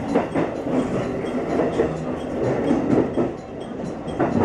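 Electric train running over points and rail joints, wheels clacking several times over a steady rumble.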